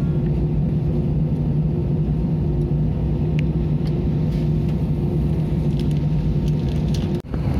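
Steady hum inside an Airbus A320 cabin before departure, the air-conditioning and aircraft systems running, with a few faint clicks and taps.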